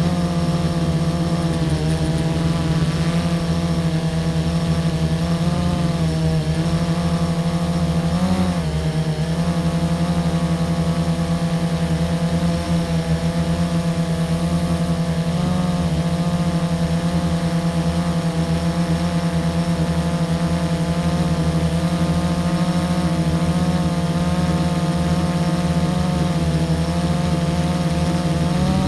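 A vehicle engine running steadily with a constant low hum, its pitch wavering briefly a couple of times.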